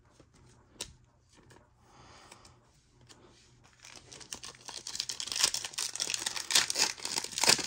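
A few faint clicks, then from about four seconds in a 2023 Donruss Optic football card pack's wrapper crinkling and tearing as it is ripped open.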